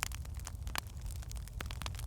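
Firewood burning in a fireplace, crackling with many irregular sharp pops and snaps over a steady low rumble.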